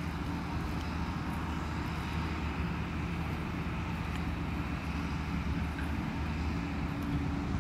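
A steady, low engine drone with a few fixed pitches, over a constant outdoor hiss.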